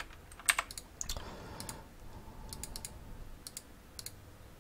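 Computer keyboard keys being pressed, a few scattered clicks, several in quick pairs.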